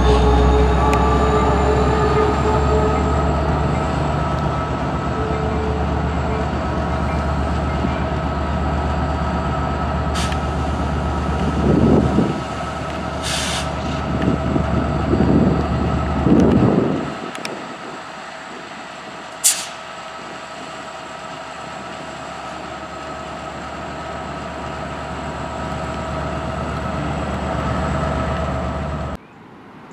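Amtrak Piedmont passenger train passing at a grade crossing: the locomotive's diesel engine and the passenger cars rumble by, with a few surging swells and sharp clicks, and the rumble drops away about 17 seconds in. A steady ringing tone from the crossing signals goes on under it and stays after the train has passed.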